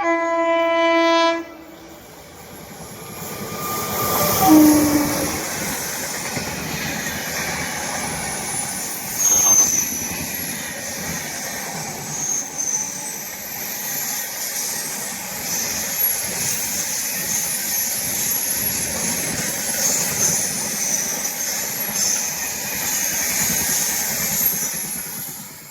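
Indian Railways train horn sounding once for about a second and a half, then a train passing close by for over twenty seconds: a steady rumble with wheels clicking over rail joints and faint high squeals from the wheels, fading away at the very end.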